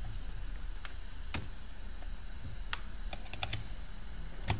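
A handful of light, irregularly spaced plastic clicks and taps from handling a plug-in power meter and pushing a power plug into it, the sharpest click near the end.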